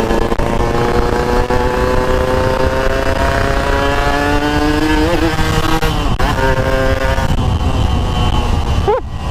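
Motorcycle engine pulling under acceleration, its pitch climbing slowly, then falling at upshifts around five and six seconds in before holding steady, with a short lift off the throttle near the end. Heavy wind rumble on the helmet-mounted microphone throughout.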